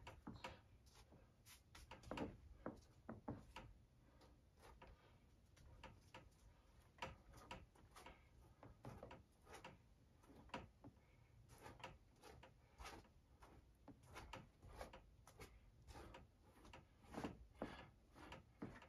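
Faint, irregular soft taps and rubs of a gloved hand working acrylic paint over a stretched canvas, one or two strokes a second.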